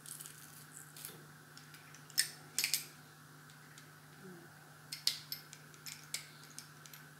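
Stainless steel garlic press being squeezed and handled: sharp metallic clicks and clacks of its hinged handles, loudest around two seconds in and again around five seconds in, over a faint steady hum.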